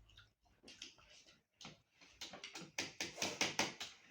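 Eating sounds: a quick run of short, sharp clicks and smacks, sparse at first and coming thick and fast in the second half.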